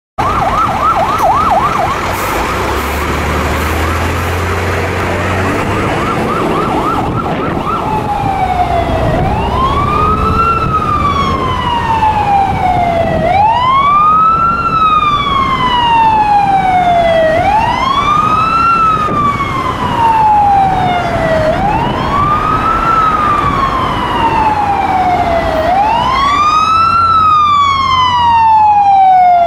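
Scania fire engine's siren on an emergency run: a fast yelp for the first seven seconds, then a slow wail that rises quickly and falls away over about four seconds, cycle after cycle. The truck's diesel engine rumbles underneath, and the siren grows louder near the end as the truck comes close.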